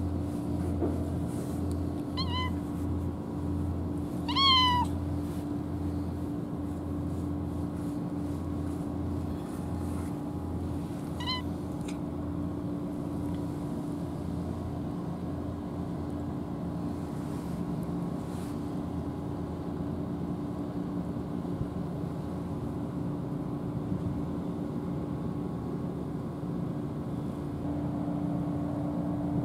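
A tabby cat meowing three times, short calls about two, four and eleven seconds in, the middle one the loudest. Under them runs the steady low drone of an engine.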